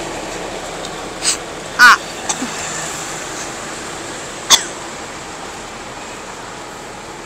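A person coughing in short sharp bursts, a few times over several seconds, the loudest cough about two seconds in. Underneath is the fading steady noise of traffic.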